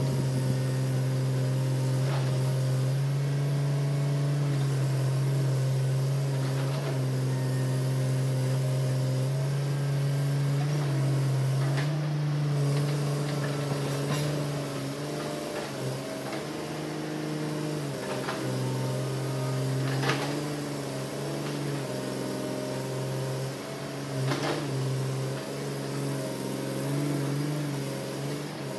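Hitachi Zaxis 200-5G excavator's diesel engine running steadily under load, its pitch dipping and rising at times in the second half as the machine works. Scattered sharp knocks sound over the engine, the loudest about two-thirds of the way in.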